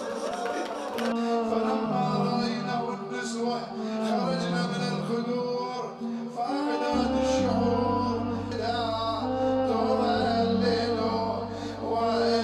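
A man's voice chanting a mournful elegy in long, sliding melodic lines. A low steady drone joins beneath it about seven seconds in.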